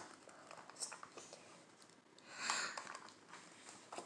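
Plastic toy capsule being peeled open by hand: scratchy rustling and small clicks as the sticker seal strip along its seam is pulled away, with a louder tearing swish about two and a half seconds in.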